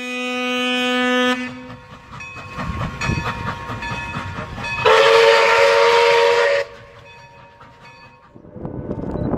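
Steam locomotive sounds: a steam whistle blast lasting about a second at the start, then rhythmic exhaust chuffs, then a louder multi-note chime whistle blast of about two seconds around the middle. A steady rushing noise builds near the end.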